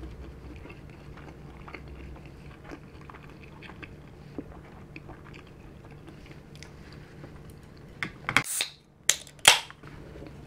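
Faint, wet chewing of a mouthful of dim sum, with small mouth clicks. Near the end come two or three loud slurping sips from a drink can.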